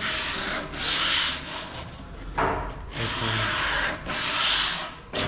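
Sandpaper rubbed by hand over wood in long, uneven back-and-forth strokes, about three of them, with a short sharp click near the end.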